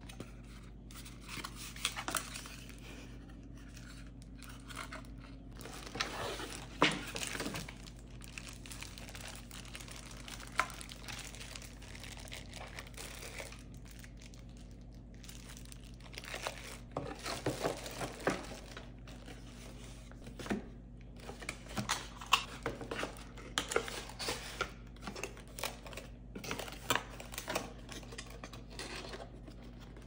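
Cardboard box and plastic wrap being handled during an unboxing: irregular crinkling of plastic film, rustling and tearing of cardboard, and small knocks of flaps and parts being set down.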